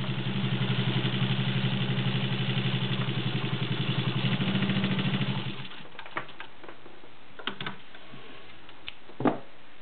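Singer 15-91 sewing machine with its potted direct-drive motor running steadily, stitching through three layers of medium-weight garment leather with a rapid, even stitch rhythm over a motor hum. It stops about five and a half seconds in, followed by a few light clicks and one sharper knock near the end.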